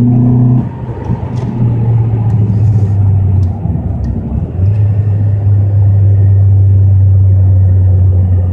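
2012 Hyundai Elantra's four-cylinder engine droning through a custom fiberglass air intake while driving, heard from inside the cabin. The low, steady drone drops back briefly about half a second in and again around four seconds, then holds loud and even.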